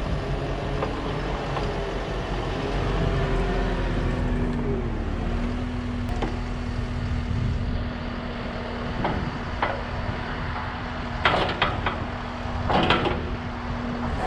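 Tracked skid steer's diesel engine running a hydraulic stump grinder attachment. A steady whine sets in about four seconds in, and several sharp knocks come near the end.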